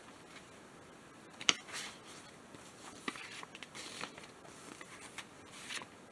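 Sheets of paper stickers and release papers being handled: scattered rustling, with a sharp tap or click about one and a half seconds in.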